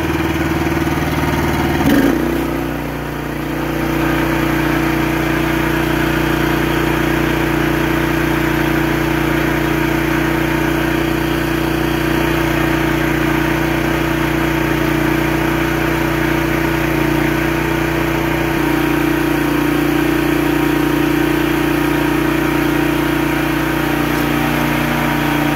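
Gas engine of a Mi-T-M 4000 PSI pressure washer running steadily, with the hiss of its water spray over it, while it burns off the oil left in the cylinder after it locked up with fluid. About two seconds in the engine note dips briefly, and later on it shifts slightly.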